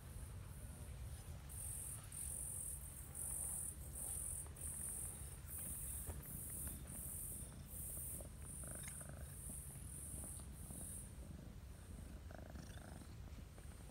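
Cats purring close up, a low steady rumble, while insects chirp high-pitched in a regular pulse about one and a half times a second. The insects stop a little before the end.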